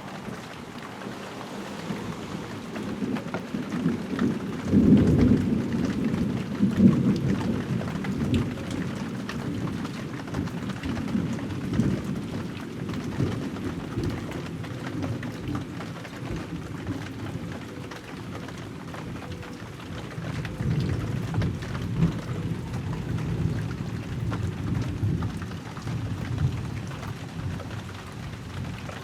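Thunder rumbling over steady heavy rain: a long rolling rumble builds a few seconds in and peaks around five to seven seconds, then a second swell of rumbling follows past the middle, with the rain hiss underneath throughout.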